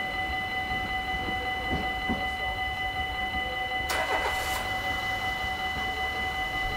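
Level-crossing warning bells ringing steadily at a fixed pitch. About four seconds in, a brief rushing clatter comes as the barrier booms start to rise and the crossing begins to clear.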